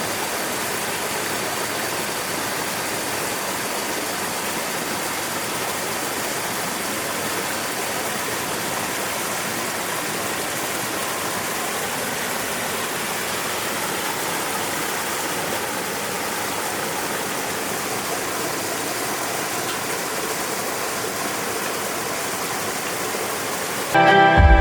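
River water rushing steadily, an even unbroken noise. Music cuts in suddenly at the very end.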